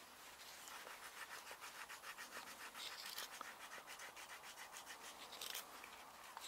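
Hook knife cutting into the bowl of a hand-carved wooden spoon: quick, short, faint scraping strokes in a steady rhythm, several a second.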